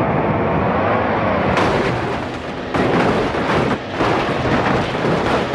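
Loud rushing spray of water washing mud off a toy, broken by a few short pauses.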